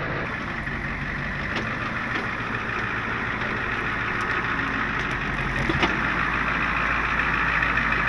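Tow truck's engine running steadily, getting slightly louder toward the end.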